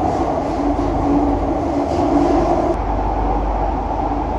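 Steady running noise inside an MRT train carriage: the rumble and hum of a metro train in motion.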